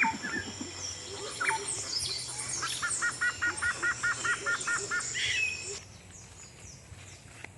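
Several wild birds calling and chirping, with one giving a fast run of about ten short, evenly spaced notes from about three to five seconds in. The birdsong drops away suddenly near six seconds in.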